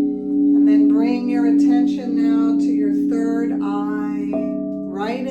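Singing bowls ringing in steady, slowly pulsing tones, with wordless gliding vocal toning sung over them. About four seconds in, a higher bowl note comes in and holds.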